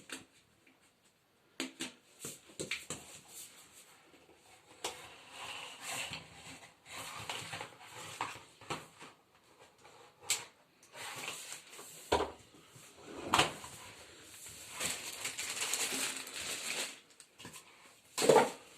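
Intermittent clicks, knocks and rustling from plastic vacuum-cleaner parts and packaging being handled, with a few sharper knocks.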